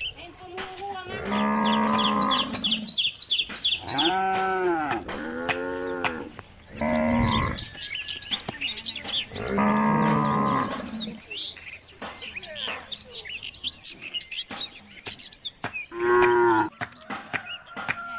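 Cows mooing: about six long, drawn-out calls one after another, some rising and falling in pitch, with birds chirping between them.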